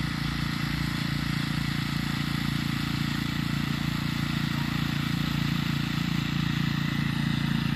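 Small gasoline engine of a walk-behind garden tiller running steadily at an even speed.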